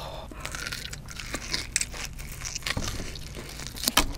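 Wet crackling and clicking as gloved hands pull and peel skin and flesh away from a raw tuna head, with one sharp loud click about four seconds in.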